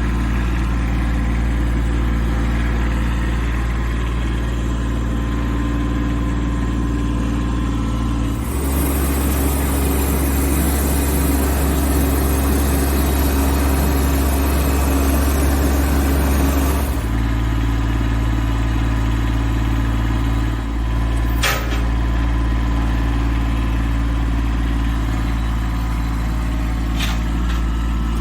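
Small engine running steadily, with a louder, noisier stretch of about eight seconds in the middle. A sharp knock comes about two-thirds of the way through, and a fainter one near the end.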